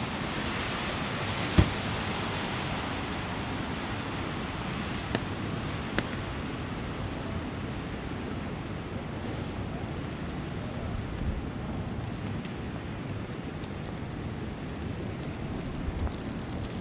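Steady hiss of city street traffic on snowy roads. A sharp knock comes about a second and a half in, and two fainter clicks follow around five and six seconds.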